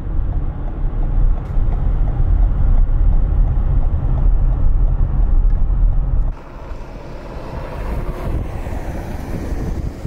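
Wind buffeting the microphone as a heavy, steady rumble over traffic noise. About six seconds in, it cuts abruptly to a quieter hiss of a car driving over a snow-covered road.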